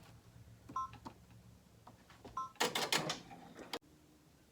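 Embroidery machine control panel beeping twice, short two-tone beeps about a second and a half apart as it is set to tack down a pocket, followed by about a second of rattling noise as the machine starts up, which cuts off suddenly.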